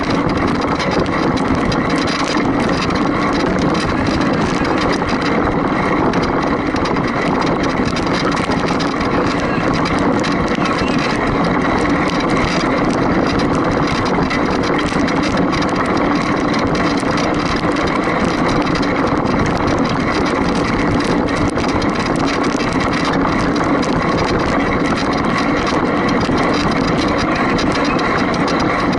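A motor running steadily at an even speed, a constant drone with a rushing noise over it.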